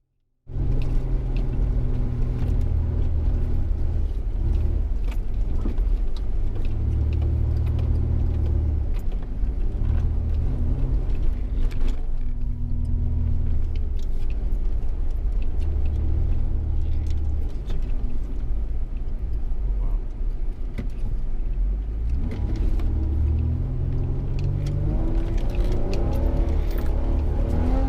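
Off-road vehicle driving on desert sand: the engine runs under load over a heavy low rumble, swelling and easing, with its pitch climbing as it revs near the end. It starts suddenly about half a second in.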